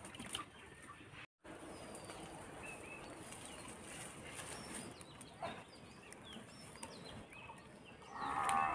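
Quiet village-yard ambience with chickens clucking and scattered small bird chirps; one louder hen call near the end.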